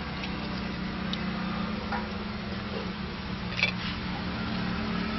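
Knife cutting a lemon over a steel plate, with a few faint ticks and one sharp metallic click about three and a half seconds in as the knife and the cut halves meet the plate. A steady low motor hum runs underneath.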